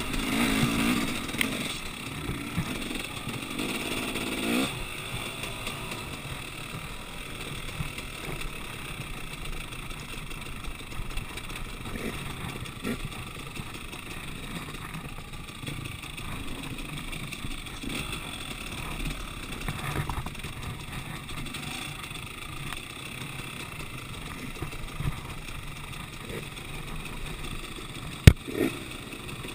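Dirt bike engine revving hard for the first few seconds, then running lower and steadier at trail speed. One sharp knock near the end.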